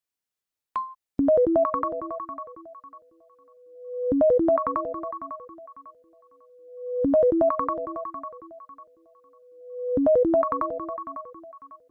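iOS 17 iPhone ringtone playing: a short melodic phrase of quick, bright keyboard-like notes looping four times, about every three seconds, with a held tone swelling up into each repeat. A short blip comes just before the first phrase.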